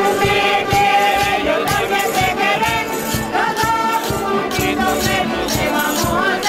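A Canarian folk group playing: strummed acoustic guitars and a piano accordion, with several voices singing together over a steady rhythm.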